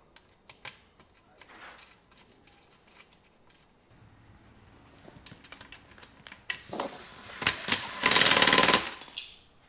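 Cordless drill/driver tightening the bolt and nylock nut on a rooftop tent's ladder bracket: a few short bursts, then a loud fast rattling run for about a second near the end. Light clicks of hand tools and hardware come before it.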